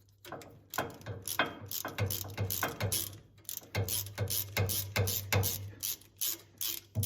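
A 3/8-inch drive ratchet clicking in quick back-and-forth strokes, about two to three a second with a couple of short pauses, as it backs out a small differential cover bolt.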